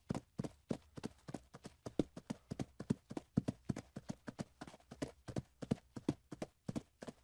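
Hooves clopping on hard ground in a quick, regular run of hoofbeats, several a second.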